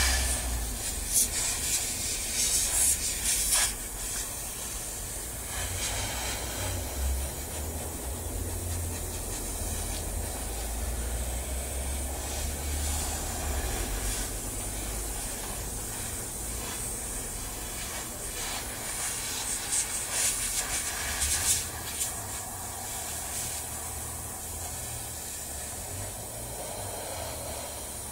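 Gravity-feed airbrush hissing as it sprays paint onto a plastic model tank turret, with louder spells about a second to four seconds in and again around twenty seconds in.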